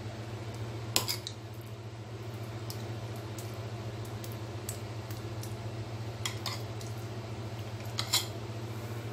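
Metal spoon clinking against a glass baking dish as it spreads and smooths thick halwa: a few sharp clinks, the loudest about a second in and near the end, over a steady low hum.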